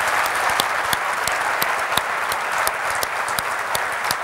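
Audience applauding steadily: a dense wash of many hands clapping, with a few sharper single claps standing out.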